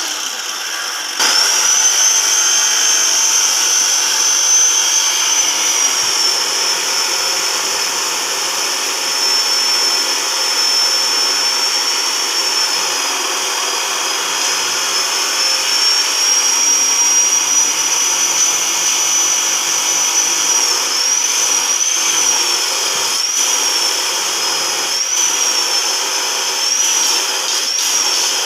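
A handheld power tool runs with a high whine that starts about a second in. Near the end its pitch dips and recovers several times.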